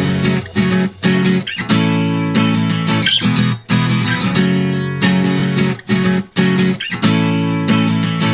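Background music: strummed guitar chords, cut by brief pauses between phrases.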